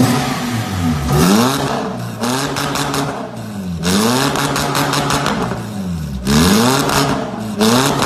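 Perodua Myvi GT engine revved several times through an aftermarket valvetronic exhaust, each rev rising and falling in pitch with a raspy edge. Partway through, the remote-controlled exhaust valve switches from closed to open.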